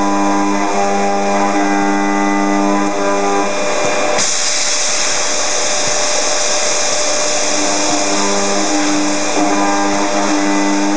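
Robot-held high-speed milling spindle cutting aluminium: a steady whine made of several tones, with a loud high hiss of cutting joining about four seconds in and continuing.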